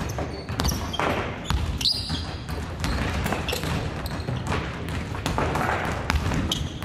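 Basketballs bouncing and thudding on a wooden gym floor in a large hall, many irregular impacts, with a few short high squeaks.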